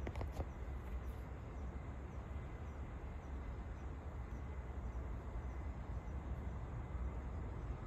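Outdoor background noise: a steady low rumble, with a few faint clicks just after the start.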